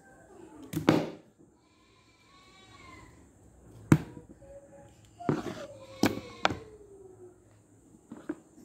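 Plastic action figures knocked and banged onto a tabletop: about five sharp knocks, the loudest about a second in and near four seconds.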